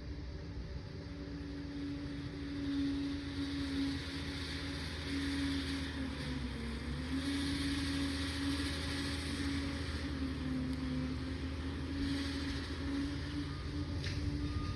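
Liebherr PR 746 crawler dozer's diesel engine running steadily, with a brief dip in pitch about six and a half seconds in before it picks back up. A short click sounds near the end.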